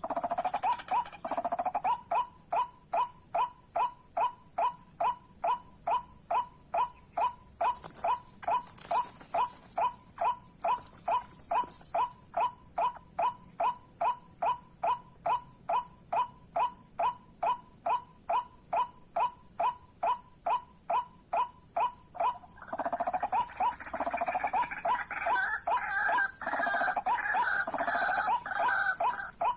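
White-breasted waterhen calls: a loud, pitched 'kwak' repeated steadily about three times a second, the call used to lure the birds into the snare. From about twenty-three seconds in, more calling overlaps it, busier and more ragged.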